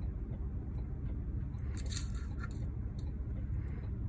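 Faint small clicks and scrapes as tiny wafer springs are pushed into a car ignition lock cylinder during a rebuild, mostly about two seconds in, over a steady low hum.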